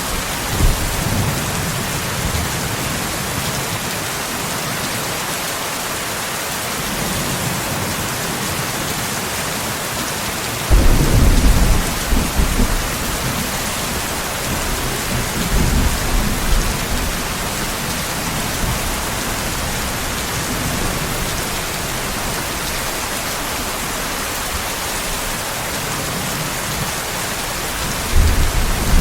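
Steady heavy rain hissing, with low rolls of thunder. The loudest rumble comes about eleven seconds in, a shorter one around sixteen seconds, and another begins just before the end.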